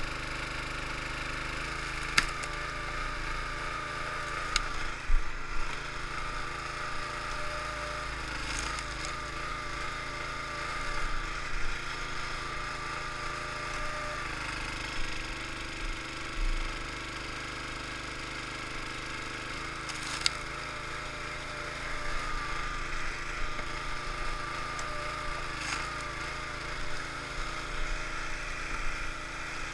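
The small gasoline engine of a hydraulic log splitter runs steadily, its note shifting a few times as it takes load. Several sharp cracks and knocks of oak rounds splitting and wood being handled stand out from the engine.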